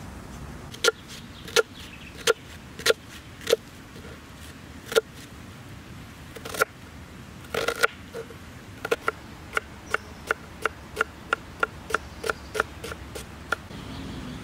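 A series of sharp knocks, each with the same ringing pitch: about six spaced under a second apart, then after a pause a quicker run of about fifteen, roughly three a second, stopping shortly before the end.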